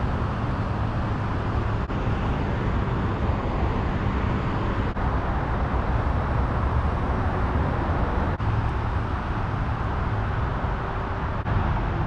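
Steady outdoor ambient noise, mostly a low rumble, with short dropouts about every three seconds where the shots change.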